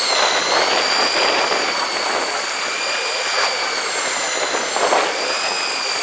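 A motor's steady high whine at several pitches that dip together early on and rise slightly later, over a constant rush of wind and sea noise.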